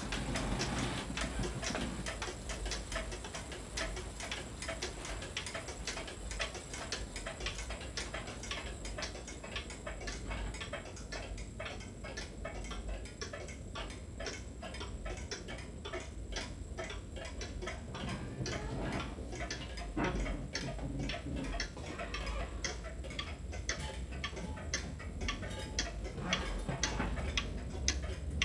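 Antique carved Black Forest pendulum wall clock ticking steadily, its escapement giving an even train of sharp ticks, over a low steady hum.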